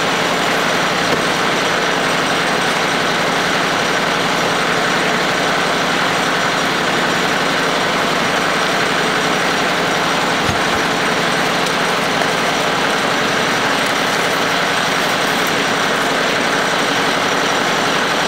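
Kioti CS2220 sub-compact tractor's diesel engine running steadily, warming up just after a cold start at −22 °C.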